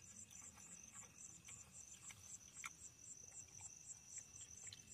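Crickets chirping faintly in a fast, even pulse over a steady high insect tone, with a few light clicks of a plastic fork on a steel plate.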